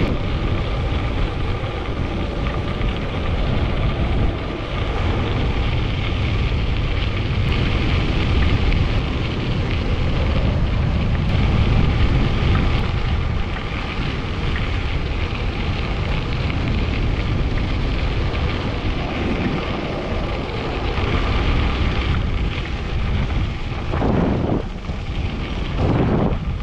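Wind rushing over the microphone and tyres rolling on a crushed-gravel trail as a RadCity e-bike rides along at speed, with a faint steady whine underneath.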